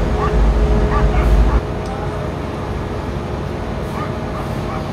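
A dog giving a string of short yips over a steady machine hum. A loud low rumble stops abruptly about a second and a half in.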